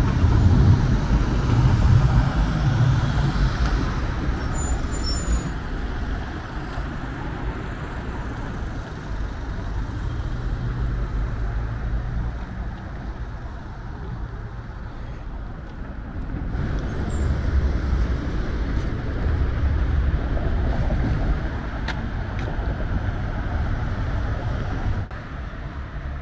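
City road traffic: cars driving past close by over a steady hum of traffic, loudest in the first few seconds and again about two-thirds of the way through.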